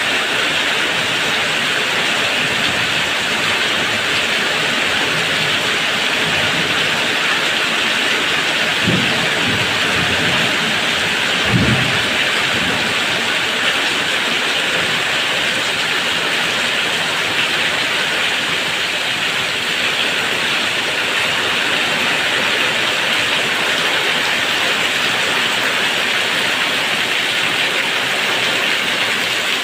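Heavy rain falling steadily in an even hiss. Two brief low thumps come through it, about nine and twelve seconds in.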